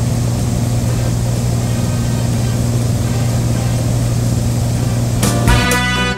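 Light airplane's engine and propeller running with a steady low drone. About five seconds in, music comes in over it.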